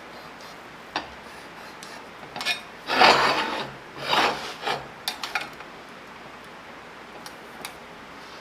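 A marking tool scratched along a straightedge across a steel plate, scribing layout lines in two strokes about three and four seconds in, with a few light clicks and taps on the metal around them.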